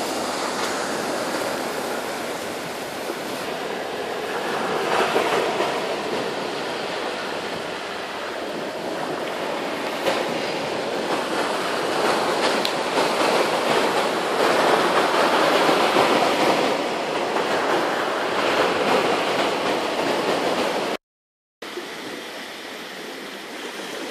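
Surf washing on a beach, a steady rushing noise that swells and eases, cutting out briefly near the end.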